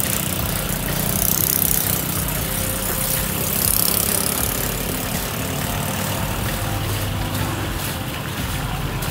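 A steady low engine hum, with crinkling and rustling from plastic-bag gloves tossing insects in a metal basin, loudest about a second in and again near four seconds.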